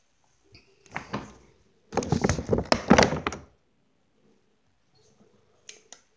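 Handling noise of a camera at close range: bumps and rubbing right at its microphone. There is a short burst about a second in, then a louder run of thumps lasting about a second and a half.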